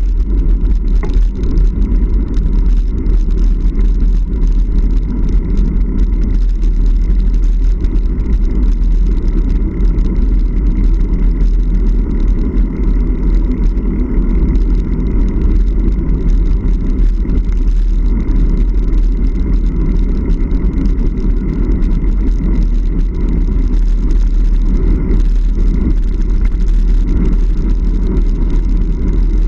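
Mountain bike tyres rolling along a coarse gravel trail, with wind on the camera microphone: a loud, steady low rumble throughout.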